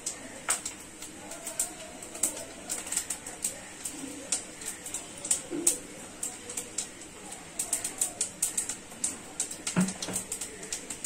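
White cumin seeds crackling and popping in hot oil in a non-stick kadai, the tempering stage: irregular sharp pops, several a second, with a duller knock near the end.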